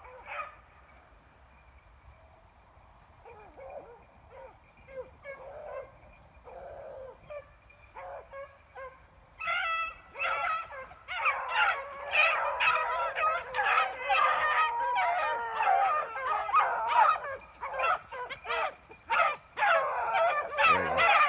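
A pack of beagles baying as they run a rabbit. The calls are scattered and faint at first, then from about nine seconds in the pack's voices grow loud and many overlap.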